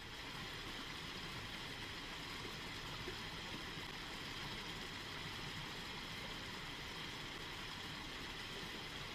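Steady rush of a rocky mountain stream pouring over riffles and small cascades.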